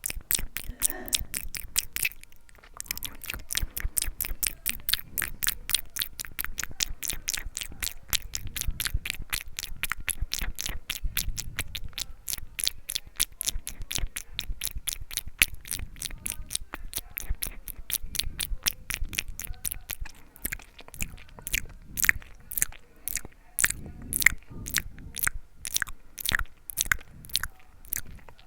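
ASMR mouth sounds: rapid wet clicks and smacks of lips and tongue close to the microphone, several a second, with a short pause about two seconds in. The clicks become sparser and sharper near the end.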